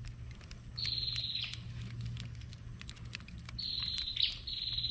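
Short, high, buzzy animal calls, each about half a second long: one about a second in, then two close together near the end. Faint scattered ticks and a low steady hum lie underneath.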